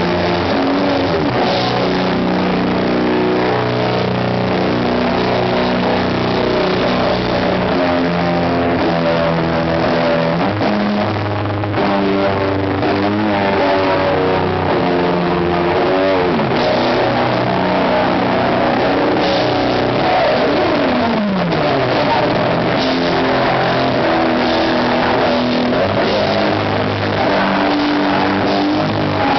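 Sludge metal band playing live: distorted electric guitar, bass and drum kit, loud and dense, with long guitar slides down in pitch a little past the middle.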